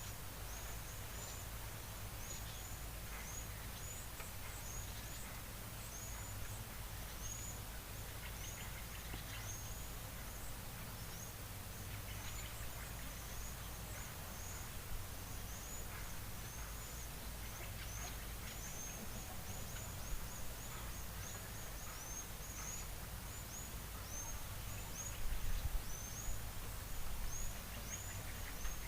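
A small bird calling over and over with short, high chirps, about two a second, over a steady low rumble. A few louder knocks and rustles come near the end.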